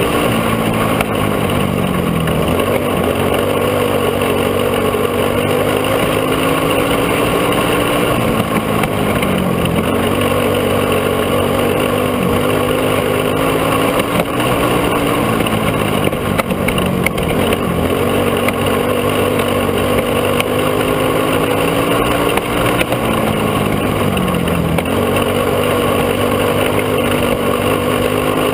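Go-kart engine running hard, close up from on board, its pitch dipping and climbing back four times, about every seven or eight seconds, as the kart eases off for the corners of the dirt oval and accelerates out again.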